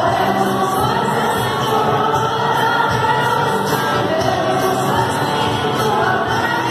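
Christian worship music with a large crowd of young voices singing along together, over a steady beat.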